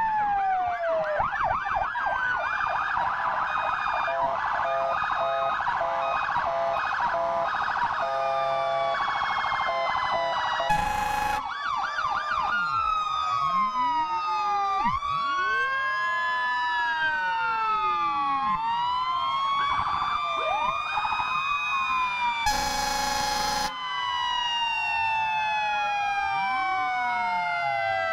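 Several fire-apparatus sirens sounding at once, overlapping slow wails that glide up and down, with fast yelping warbles for the first several seconds. Two horn blasts cut through, a short one about 11 seconds in and a longer one about 23 seconds in.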